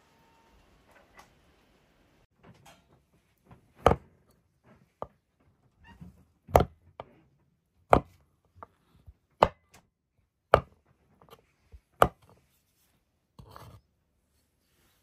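Knife chopping on a wooden cutting board: about six hard strokes, roughly one every second and a half, with lighter knocks between them.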